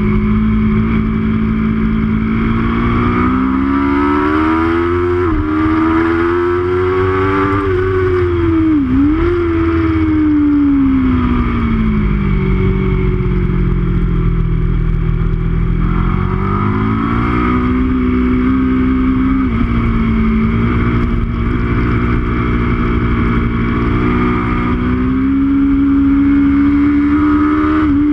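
Aprilia RSV4's V4 engine heard from on board at track speed, revving up through the gears with a sudden drop in pitch at each upshift. About ten seconds in, the revs fall away for a corner and stay low for a few seconds, then climb again through more shifts on the exit.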